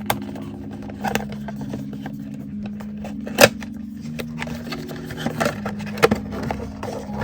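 Packaging being handled while a small box is opened: scattered clicks, taps and scrapes, with one sharp snap about halfway through. Underneath runs soft background music of sustained low notes that shift in pitch.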